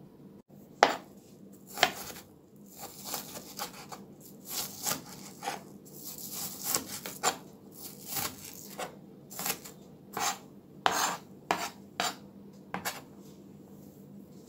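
Large kitchen knife chopping an onion on a plastic cutting board laid on a towel: a run of sharp, irregular knife strikes, about one or two a second, stopping shortly before the end.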